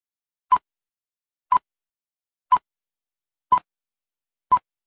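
Film-leader countdown beeps: five short beeps of the same pitch, one each second.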